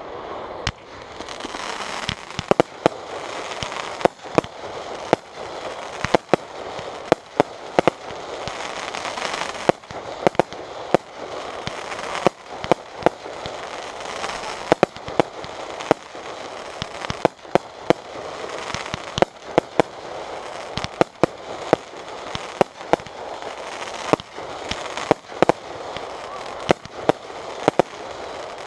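Fireworks display: aerial shells launching and bursting in quick, irregular succession, with sharp bangs coming one to several a second, often in clusters, over a steady rushing noise between them.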